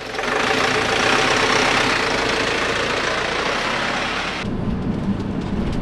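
A motor vehicle running close by, a steady loud rush of engine and road noise. The hiss drops away suddenly about four and a half seconds in, leaving a low engine rumble.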